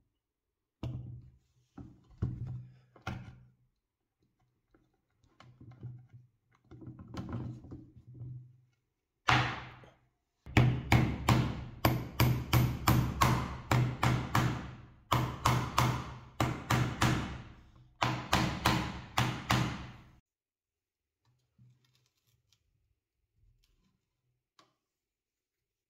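Hammer tapping metal hardware into the bread cutter's base: a few lighter knocks first, then about ten seconds of quick, sharp strikes, about five a second, in three runs with short breaks.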